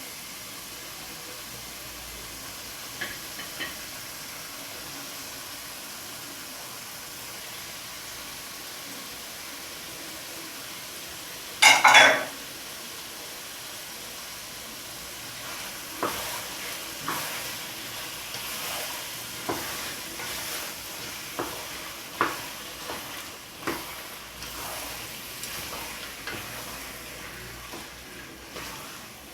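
Pot of tomato sauce cooking with a steady sizzle. About twelve seconds in there is one loud clatter, then a spoon knocks and scrapes against the pot in irregular strokes as the sauce is stirred.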